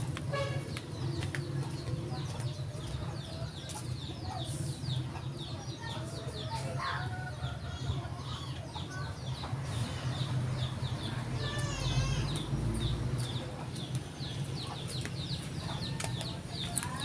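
Birds chirping in quick repeated high calls, over a steady low hum.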